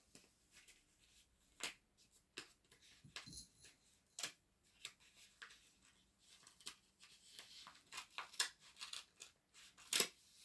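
A paper envelope being torn and pulled open by hand: a string of short rips, rustles and crinkles, with a sharper click near the end.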